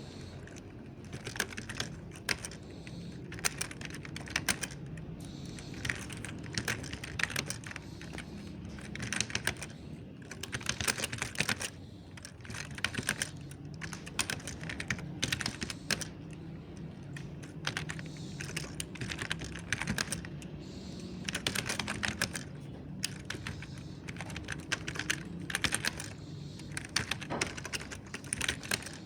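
Soft mechanical keyboard being typed on in quick bursts of keystrokes, with short pauses between bursts, over a faint low hum.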